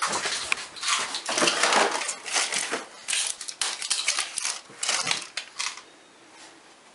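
Plastic-and-foil medicine blister packs crinkling and crackling as pills are pressed out and the packets are handled, in a run of irregular bursts that stops about six seconds in.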